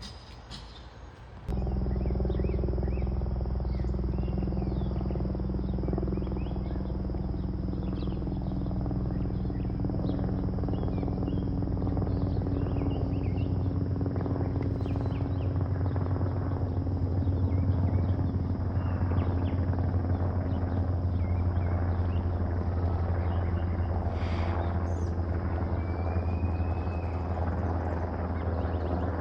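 Military aircraft engine running steadily: a loud, even, low drone with a thin high whine. It starts abruptly about a second and a half in.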